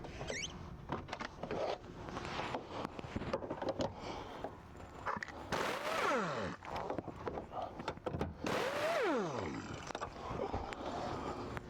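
Dodge Ram's electric power seat motor running twice, about a second each time, with a whine that falls in pitch as the front seat is moved, amid clicks and handling noise.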